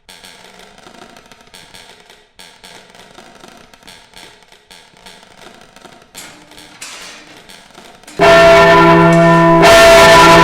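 Swinging church bell: faint knocking and quiet ringing, then about eight seconds in the clapper strikes with a sudden, very loud ring full of overtones, and strikes again about a second and a half later.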